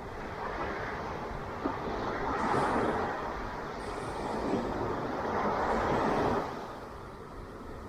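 Ocean waves breaking and washing up on a beach: a steady hiss of surf that swells louder for a few seconds and falls away about six and a half seconds in.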